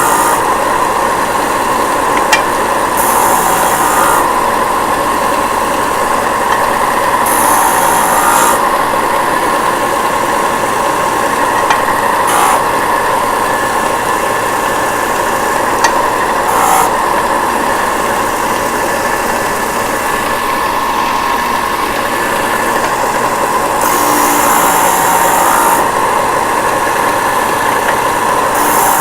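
Disc sander running with a steady hum while the end of a pen blank is squared against the disc in several short, light passes, each giving a second or two of gritty, high sanding hiss, with a few small clicks between passes.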